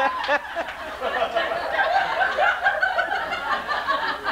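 Audience laughing and chuckling, many voices at once.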